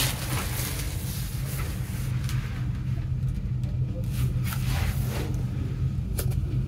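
Shrink-wrapped CD box being handled: the plastic wrap crinkles and rustles in a few short crackles as it is lifted and turned over, above a steady low hum.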